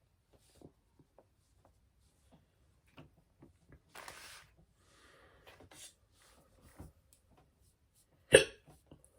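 A woman hiccuping: one loud, sharp hiccup near the end, among soft clicks and taps from handling makeup.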